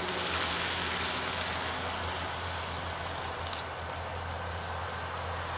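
Diesel locomotive approaching from a distance, its engine a steady low drone with a rushing noise over it.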